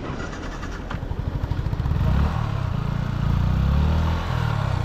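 Yamaha MT-15's single-cylinder engine revving up, its firing quickening over the first two seconds, then held at high revs with the pitch wavering, as for a burnout.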